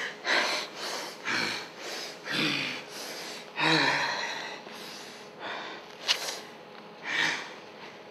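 Puppeteers' voices making breathy gasps and snorts for a puppet, a string of separate puffs about one a second, the loudest near the middle.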